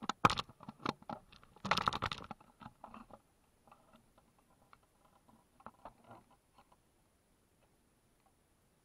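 Clicks, knocks and rustling, like handling noise on the camera. The loudest knocks and a short rustle come in the first two to three seconds, followed by scattered faint taps.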